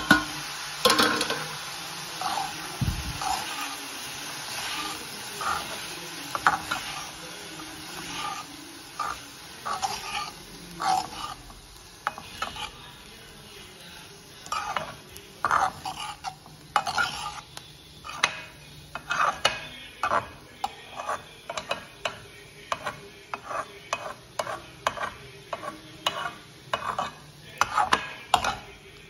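Steel spoon stirring and scraping grated coconut and greens around a metal kadai: short scrapes and clinks, a few every second and coming faster in the second half. Under them is a light steady sizzle.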